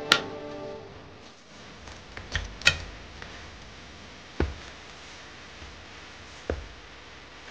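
Cardboard parcel being opened by hand: flaps and inner cardboard packaging pulled apart and handled, with a sharp click at the start, a quick pair of knocks a couple of seconds in, then two more single knocks. Background music stops about a second in.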